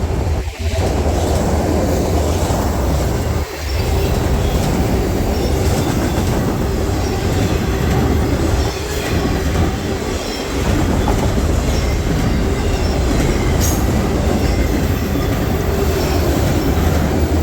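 Freight train rolling past close by: a steady rumble of wheels and cars on the rails, with a clickety-clack over the rail joints.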